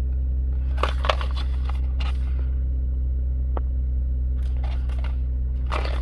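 Packaging of the puddle-light kit being handled and opened, rustling and crinkling in several short bursts, over a steady low hum.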